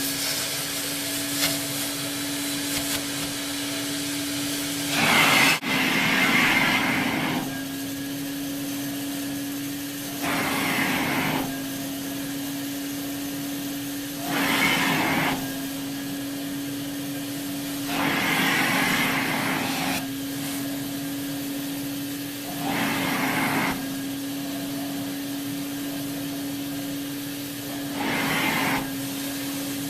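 Sterilaire (relabeled 1950s Eureka Roto-Matic) canister vacuum cleaner running, its Lamb electric motor giving a steady hum under the rush of air through it. About every four seconds the air rush swells louder for a second or two, then settles back.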